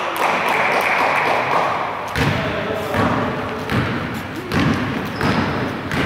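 A basketball being dribbled on a hardwood gym floor: dull, echoing thumps about every three-quarters of a second in the second half, after a rushing noise over the first two seconds.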